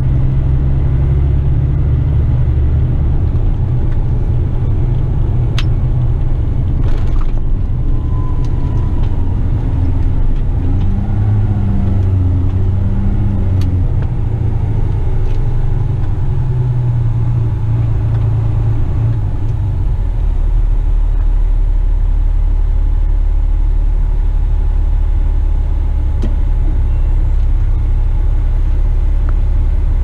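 Western Star dump truck's diesel engine and road noise heard from inside the cab while driving, a steady low rumble. Its pitch shifts up and down through the middle as engine speed changes, then settles into a steadier, deeper drone for the last ten seconds.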